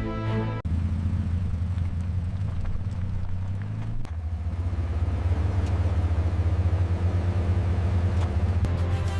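Vehicle engine running with a low, steady rumble that gets louder about four seconds in.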